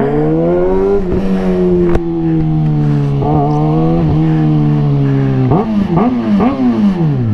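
Kawasaki ZX-6R inline-four engine under throttle while riding, holding fairly steady revs that sag slowly. About five and a half seconds in it is blipped several times in quick succession, and the revs then fall away near the end.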